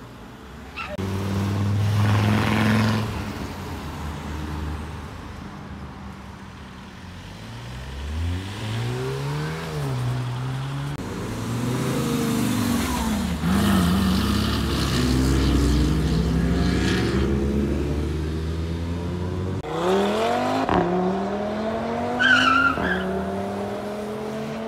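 Tuned cars accelerating past one after another, their engines revving up and dropping back in several rises, with a brief high squeal near the end.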